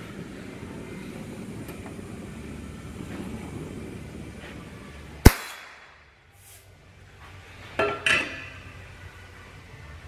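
Oxy-fuel brazing torch flame hissing steadily, then a sharp loud pop about five seconds in as the torch is shut off and the flame goes out. Two quick metallic clinks follow near the end.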